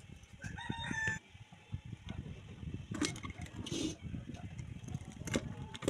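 Hand riveting of a rice cooker's galvanised sheet-metal bottom: a metal rivet clinks against the sheet as it is pushed into its hole, then a hand rivet gun is fitted and worked on it, giving a few sharp clicks.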